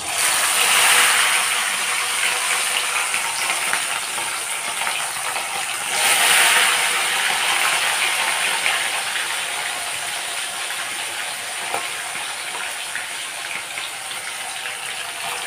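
Fish steaks sizzling and crackling as they fry in hot oil in a wok. The sizzle starts suddenly as a piece goes into the oil and swells again about six seconds in.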